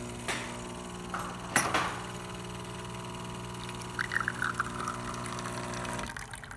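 DeLonghi Magnifica espresso machine's vibratory pump humming steadily as it pulls a shot of espresso into the cup. There are a couple of sharp clicks in the first two seconds and a brief gurgling sputter around four seconds in. The pump cuts off about six seconds in as the shot ends at about one ounce.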